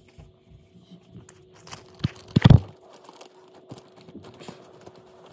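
Cardboard toy box and packaging being handled, rustling and crinkling, with a few knocks; the loudest knocks come about two and a half seconds in.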